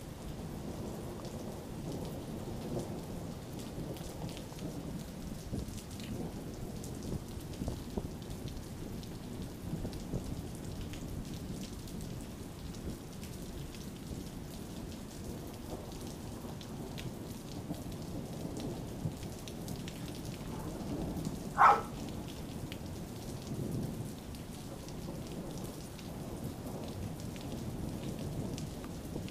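Rain falling with continuous rolling thunder, a long rumble that swells and fades without a break between claps. About two-thirds of the way in, one brief, louder, higher-pitched sound stands out.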